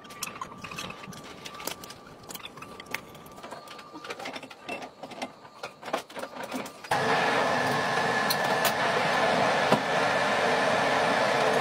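Light metallic clinks and knocks as steel adaptor parts are handled, then about seven seconds in a workshop machine starts abruptly and runs steadily and loudly with a constant whine.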